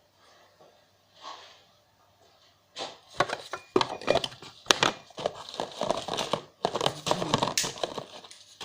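Objects being handled and moved about, a dense irregular rustling and clattering that starts about three seconds in.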